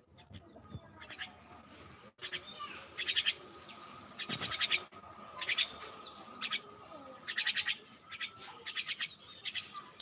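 Myna calling: short chattering calls, repeated roughly once a second from about three seconds in.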